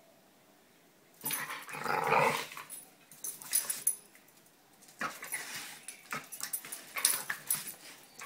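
Two dogs, an American Staffordshire terrier and a fox terrier, at rough play: a growl about a second in, then quick scuffling and clicking noises with short bursts of growling.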